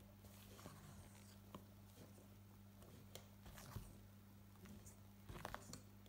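Faint scrapes and soft clicks of a spatula folding thick chocolate sponge batter against the side of a stainless steel bowl, with a few quick scrapes close together near the end, over a steady low electrical hum.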